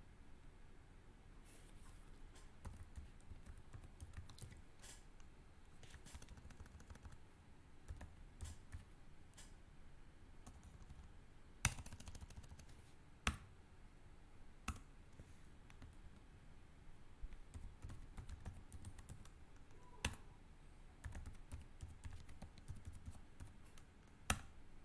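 Computer keyboard being typed on, faint and irregular key clicks with a few louder single keystrokes, as a username is entered at a login prompt.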